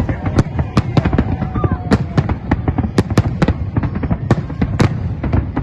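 Fireworks display: a dense, continuous barrage of sharp bangs and crackling pops, several a second.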